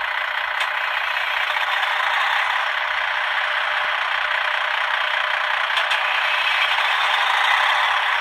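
Diesel engine sound of a DB class 245 locomotive from the sound decoder of a Piko model, running steadily and growing slightly louder. It plays through the model's small onboard loudspeaker, so it is thin and has no deep bass.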